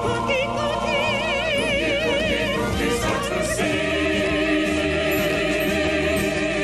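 Opera-style singing with a wide vibrato, with music behind it; about three and a half seconds in, the voices settle into a long held note.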